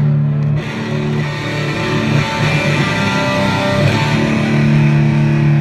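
Electric guitar played loud through arena stage amplification: held low notes and chords, with a few changing higher notes in the middle.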